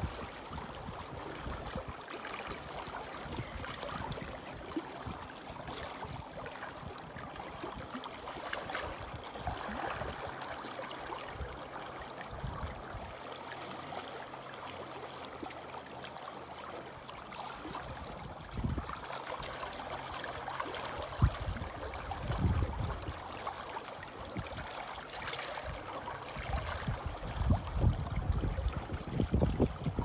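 Small sea waves lapping and splashing against shore rocks, a steady wash of water. In the second half, bursts of low rumble from wind on the microphone come and go.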